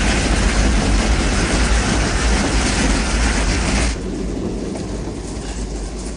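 Train running at speed through snow: a loud rushing noise over a deep rumble for about the first four seconds, then a sudden drop to a quieter steady rumble of the moving train.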